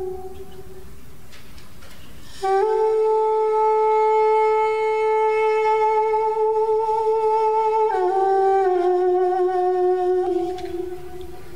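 Armenian duduk, a double-reed woodwind, playing a slow melody in long held notes. The first note fades out at the start; after about two seconds without a note, a new note enters and is held for over five seconds, then the line steps down twice and fades near the end.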